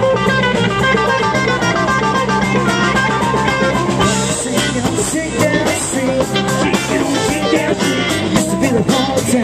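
Live band playing a jam: electric guitars over a drum kit, with cymbals keeping a steady beat.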